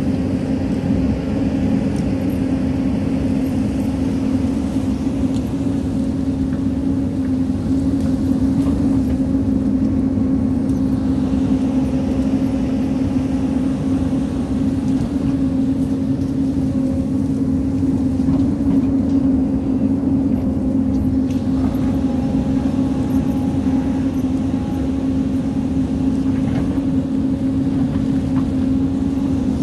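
Hyundai hydraulic excavator's diesel engine running steadily while it digs, a constant loud hum that holds the same pitch throughout.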